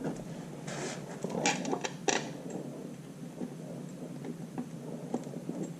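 Hand-fitting a bolt into a tractor's clutch-housing cover: a few short metal scrapes and clicks in the first two seconds or so, then faint ticks as the bolt is felt into its hole.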